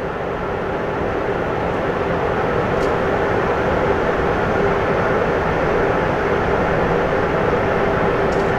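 Aircraft auxiliary power unit (APU) running steadily on the parked Airbus A400M Atlas before engine start: a constant rumbling drone with a hum in the middle range, swelling slightly over the first few seconds.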